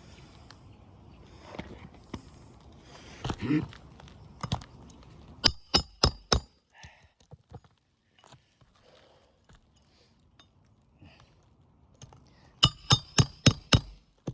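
Hammer driving roofing nails to fasten a new asphalt shingle: two runs of quick, ringing metal-on-metal strikes, four around the middle and six in rapid succession near the end, with rustling and a dull thump of handling before them.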